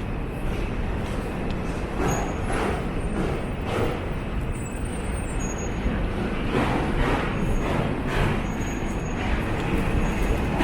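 City street traffic: a steady rumble of passing vehicles, a truck or bus among them, with footsteps about two a second.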